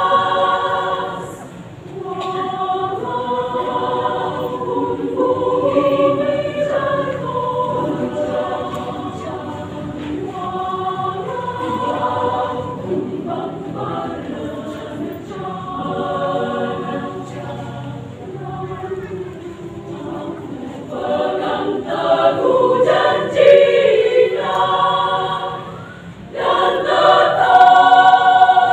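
Women's choir singing, with a brief drop between phrases about two seconds in and again shortly before the end. The singing swells louder in the last couple of seconds.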